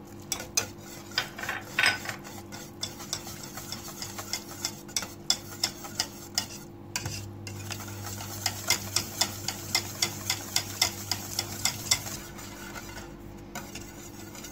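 Wire whisk beating butter into thick warm custard in a stainless-steel pot, its wires ticking against the pot's side in a steady run of quick strokes, about three a second for much of the time.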